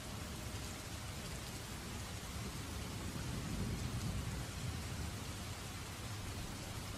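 Steady rain falling, with a low rumble that swells and fades around the middle. Hot water is poured from a kettle into glasses in the second half.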